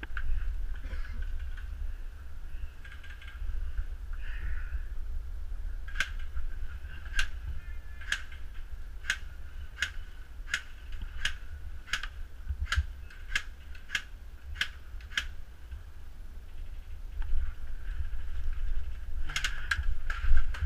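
Airsoft guns firing single shots: sharp cracks roughly one a second for about ten seconds, then a few more near the end. The sound is muffled by a camera's waterproof housing, with a steady low rumble under it.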